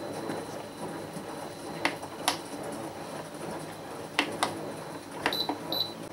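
Sharp clicks in pairs, then two short high-pitched beeps near the end, typical of the programmable countdown control panel of a Crock-Pot slow cooker being set.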